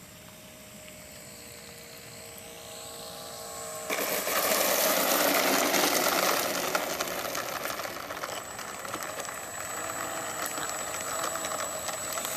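Electric motor and propeller of a ParkZone T-28 RC plane whining faintly and growing louder as it comes in. About four seconds in it suddenly becomes a much louder rushing noise as the plane is on the wet pavement close by. The rush eases somewhat after a few seconds.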